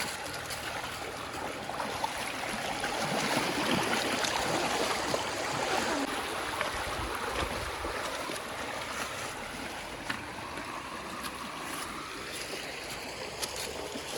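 Flowing river water, a steady rushing that swells for a few seconds, with a few faint clicks.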